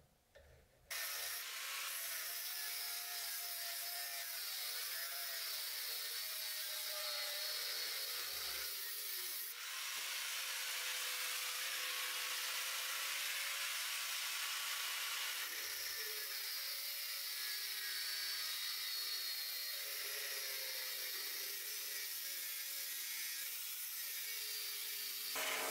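Angle grinder with a cutting disc grinding through a steel machete blade: a steady, harsh abrasive hiss that starts suddenly about a second in.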